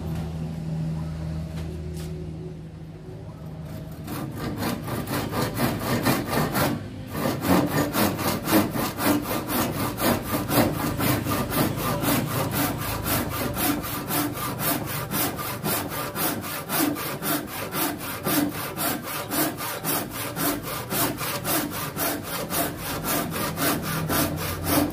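Carl Schlieper 'Tjap Mata' hand saw crosscutting a wooden board in steady, rhythmic back-and-forth strokes. The strokes start about four seconds in, pause briefly, then carry on evenly; the saw is cutting cleanly along a squared pencil line.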